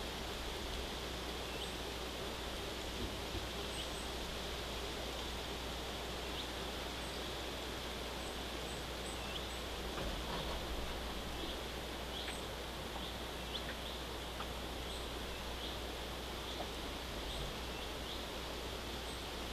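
Quiet outdoor ambience: a steady hiss with a low rumble underneath and faint, scattered short high chirps throughout.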